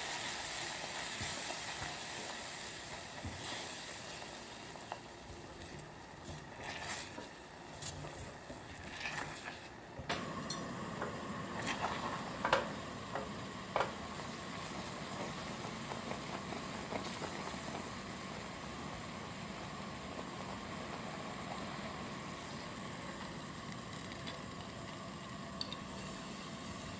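Caramel sizzling and bubbling in a ceramic pot as a silicone spatula stirs it. A bright hiss at the start fades over the first few seconds. Sharp taps and scrapes of the spatula against the pot fall between about six and fourteen seconds in, and a steadier bubbling runs on from about ten seconds.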